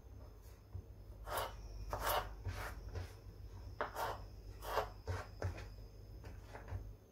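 Kitchen knife slicing carrot into thin strips on a plastic cutting board: a dozen or so short, irregular cutting strokes over a faint steady low hum.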